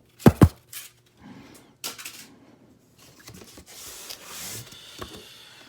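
Styrofoam and cardboard packing being pulled out of a guitar box and handled, rubbing and scraping with scattered clicks. Two sharp knocks near the start are the loudest sounds.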